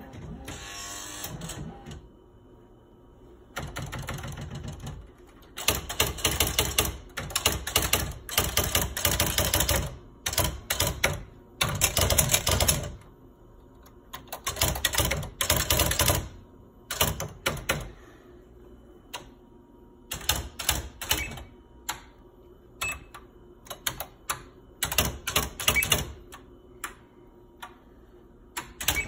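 Smith Corona SL575 electronic daisy-wheel typewriter printing as it is typed on: rapid runs of clattering print strikes with short pauses. Later come spaced single strikes, one character at a time.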